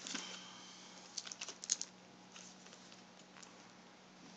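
Light clicks and taps of fingers handling the LCD video cable and its connector against the laptop screen panel, a brief rustle first, then a quick cluster of clicks about a second and a half in and a few scattered ones after.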